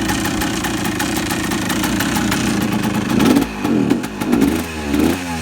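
A just-started 1985 Kawasaki KDX 200's single-cylinder two-stroke engine idling, then blipped with the throttle about four times from about three seconds in, the revs rising and falling with each blip.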